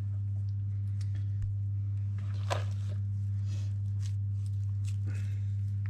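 A steady low hum, with a few faint, soft squishes of hands flattening mashed potato into patties and pressing them onto a fish pie. The clearest squish comes about two and a half seconds in.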